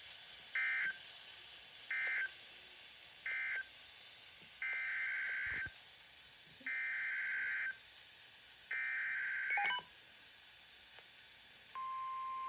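EAS SAME digital data bursts, the harsh two-tone warble of the Emergency Alert System code: three short end-of-message bursts, then three longer header bursts for the next alert, the last one ending in a click. Near the end the steady single-pitch 1050 Hz NOAA Weather Radio alert tone starts.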